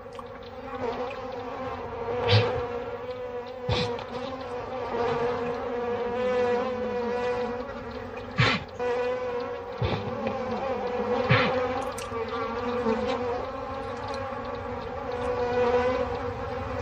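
African honeybees buzzing in a steady hum, with a brief louder swell every few seconds as a bee flies close past.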